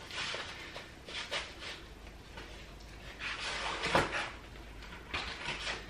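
Rustling and knocking as a stroller frame is handled and its packaging pulled off, with one sharp knock about four seconds in.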